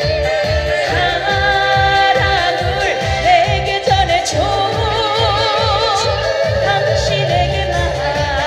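A trot song performed live: a woman sings the melody with heavy, wavering vibrato over a backing track with a steady bass beat.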